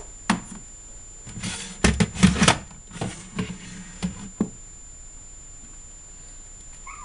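Knocks, scrapes and rattles of a plastic DSL modem box being handled and turned around on a surface: a click at the start, a flurry of knocks and scrapes about two seconds in, then a few single knocks.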